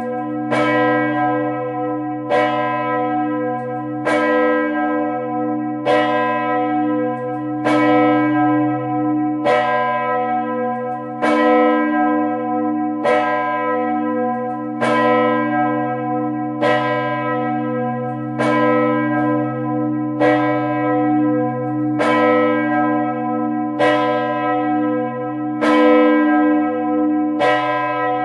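Large bronze swinging church bell rung solo, its clapper striking about every 1.8 s, some sixteen strokes in all. Each stroke rings out over a deep hum that carries on between strokes.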